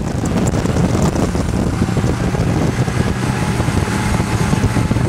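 Snowmobile engine running at a steady speed under way, a continuous drone.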